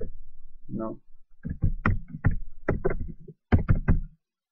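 Computer keyboard keys being pressed one at a time, a string of separate sharp key strikes that stops about four seconds in.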